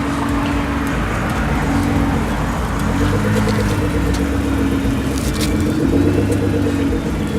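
Car engines running at low speed, their exhaust note rising and falling a little, with a faster pulsing note joining about halfway through.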